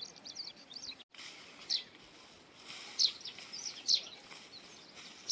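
Bird chirping: a series of short, sharp, high calls, each sweeping downward, spaced about a second apart over a faint background hiss.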